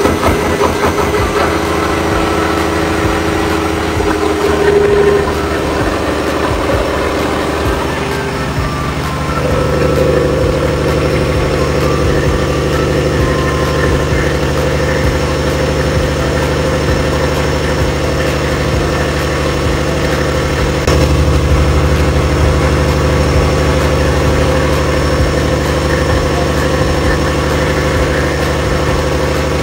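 Rebuilt Cummins QSM11 inline-six diesel engine running steadily. Its note shifts and settles about nine seconds in, and it grows a little louder and deeper about twenty seconds in.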